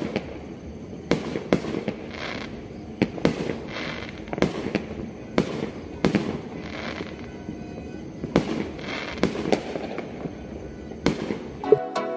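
Fireworks bursting in the distance, a string of sharp booms coming about one or two a second, some followed by a crackling hiss. Electronic music cuts in just before the end.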